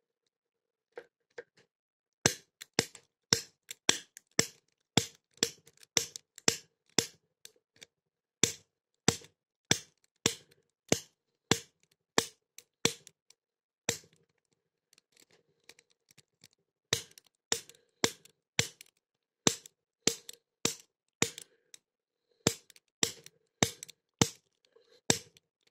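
Manual snap gun (pick gun) striking the pins of a pin-tumbler padlock: sharp metallic snaps about two a second, pausing for about three seconds midway, then resuming.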